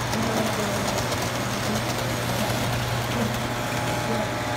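Lionel three-rail toy trains running on tubular track: a steady electric hum under the even noise of the moving trains.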